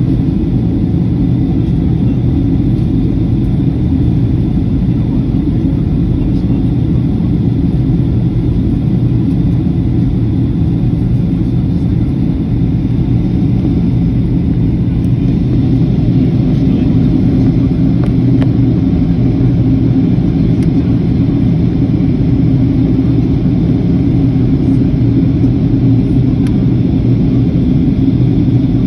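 Steady cabin noise of a Boeing 737-800 in flight, heard from inside at a window seat: a constant low rumble of its CFM56 jet engines and the air rushing past the fuselage.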